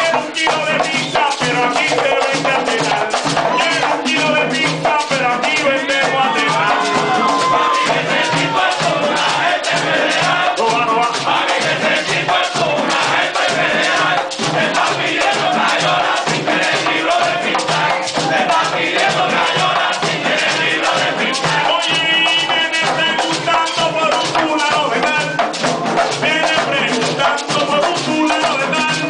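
Live plena music: several panderos (hand-held frame drums) beating a steady, driving rhythm, with a scraped güiro and a lead singer at the microphone.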